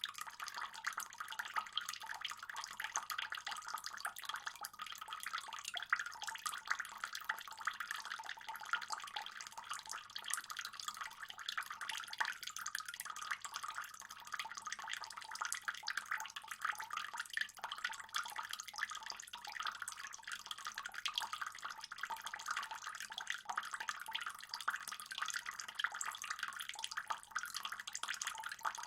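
Pond water trickling and splashing steadily, a dense, even patter of small splashes.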